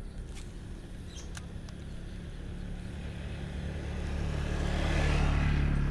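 A motor vehicle approaching and passing close by, its engine hum growing steadily louder to a peak about five seconds in. A few light clicks sound in the first second and a half.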